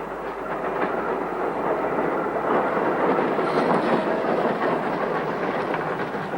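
Melbourne tram running, a steady rumble of its wheels on the rails with light clatter.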